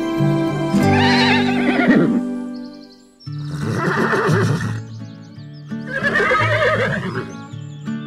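Horse whinnying three times over steady background music, the first and last whinnies falling in pitch.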